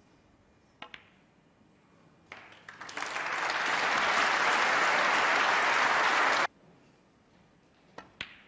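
A sharp click of snooker balls, then audience applause that swells for about a second, holds steady, and cuts off abruptly. Near the end come two quick clicks of cue and ball as the next shot is played.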